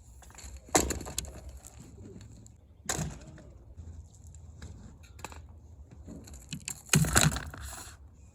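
Crunching and scraping in gravel and dirt: three sudden strokes, about a second in, near three seconds, and a longer, loudest burst near the end, over a faint steady low rumble.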